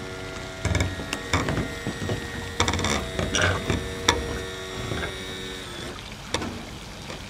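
Mercury outboard's power trim and tilt motor running with a steady hum and mechanical clicking as it raises the engine out of the water, stopping about six seconds in, followed by a single knock.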